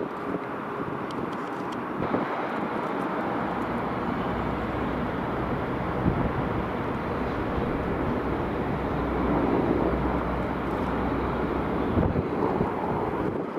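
Mi-8 helicopter's turbine engines and main rotor running at takeoff power as it lifts off, a steady dense noise that grows a little louder about two-thirds of the way through.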